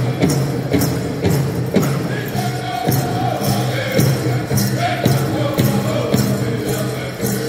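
Powwow drum group singing a grass dance song over a steady big-drum beat, about two beats a second, with high voices carrying the melody. Dancers' bells jingle along with the beat.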